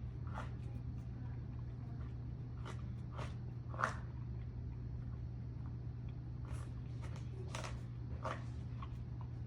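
A dog licking and lapping at a rubber lick mat, with scattered short wet clicks and smacks, the loudest just under four seconds in. A steady low hum runs underneath.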